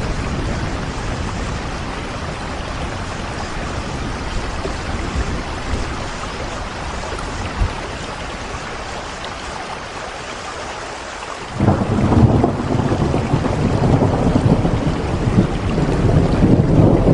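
Steady rain with scattered drops. About two-thirds of the way through, a low rumble of thunder comes in suddenly and grows louder to the end.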